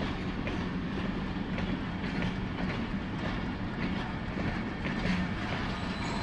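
Passenger coaches of a Pakistan Railways train rolling past: a steady rumble with the wheels clicking over the rail joints at irregular intervals.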